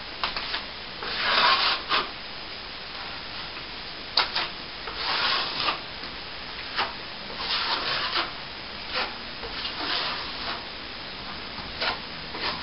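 Plasterer's steel trowel scraping back the plaster on a ceiling patch, in a series of irregular scraping strokes, some short and some about a second long.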